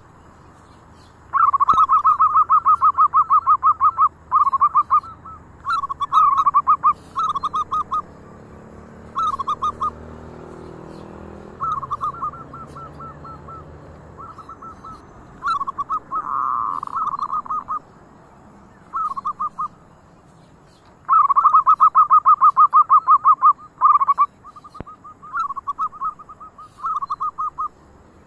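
Zebra dove (perkutut) cooing: repeated phrases of fast, rattling pulsed coos, broken by short gaps, with the longest phrases near the start and about three-quarters of the way through.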